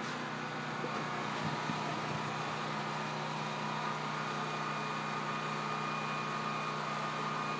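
A steady machine hum, like an engine idling, holding a few fixed pitches without change.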